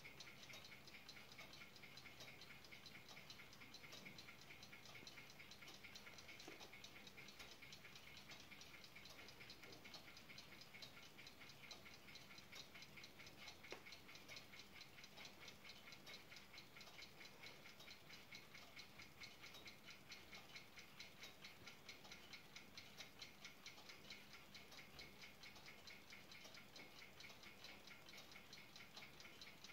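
Brass ship's clock by Observator Rotterdam ticking: a faint, quick, perfectly even tick.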